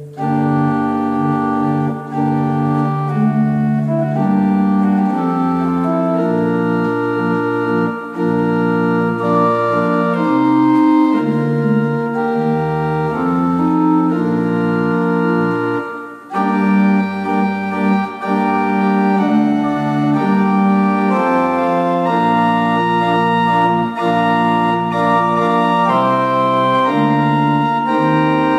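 Historic English pipe organ, parts possibly dating from about 1780, playing a slow piece of held chords under a moving melody, with a short break about sixteen seconds in.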